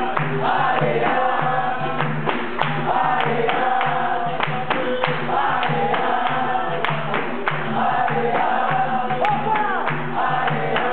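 Capoeira roda music: berimbaus play a steady repeating rhythm under a chorus of men singing in short repeated phrases, with handclaps and percussion clicks.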